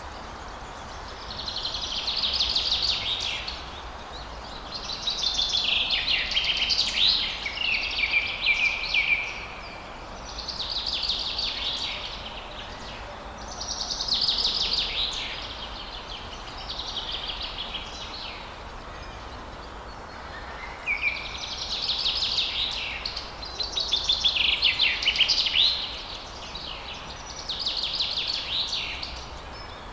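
Songbird song in about ten repeated phrases of rapid high chirps and trills, each lasting one to three seconds with short pauses between, over a steady background hiss.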